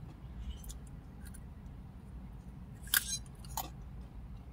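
A person chewing crunchy Fritos corn chips with the mouth, a few faint crunches and then a sharper crunch about three seconds in.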